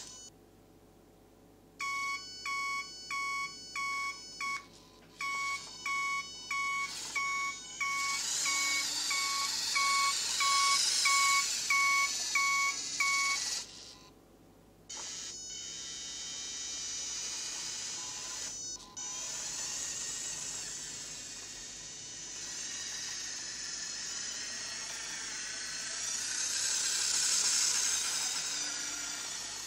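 Beeping from the built-in sound module of a Turbo Racing 1:76 C50 RC semi truck, a steady electronic beep about twice a second for roughly ten seconds with a short break in it. A high rushing whine from the running truck goes on underneath, carries on after the beeping stops, and swells near the end.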